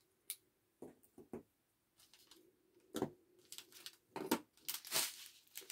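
Small acrylic diamond-painting ornament pieces clicking against each other and being set down on a tabletop. A few scattered light clicks, then a denser run of taps and handling noise in the last second or two.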